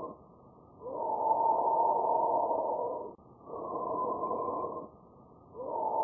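Normal bronchial breath sounds as heard with a stethoscope over the trachea: a rush of air that swells and fades with each breath phase. A phase of about two seconds starts about a second in, a shorter one of about a second and a half follows after a brief pause, and the next long phase begins near the end, with short silent pauses between.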